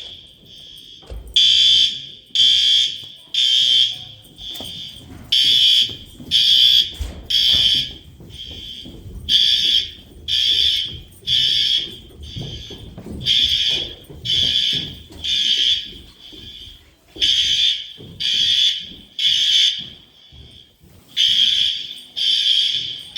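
Building fire alarm sounding the temporal-three evacuation pattern: three loud, high-pitched beeps, then a pause, repeating about six times. A fainter tone of the same pitch carries on between the beeps.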